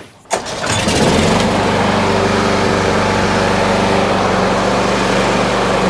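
Hayter 48 lawnmower's single-cylinder petrol engine pull-started: a short pull of the recoil starter, then the engine catches within a second and runs steadily. It is the retest start that shows the readjusted dead man's handle micro switch now lets the engine spark.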